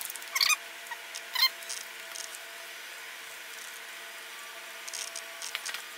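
Paper and tape being handled as a paper template is taped in place: two short squeaky, scratchy rasps about half a second and a second and a half in, then a few faint rustles near the end, over a faint steady hum.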